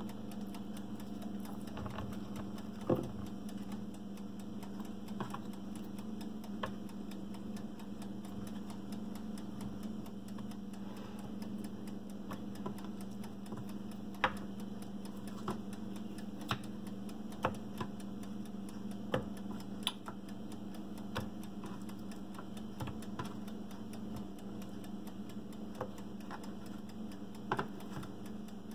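Light, irregular taps and clicks as thin raw potato slices are laid one by one into a metal baking pan, over a steady low hum.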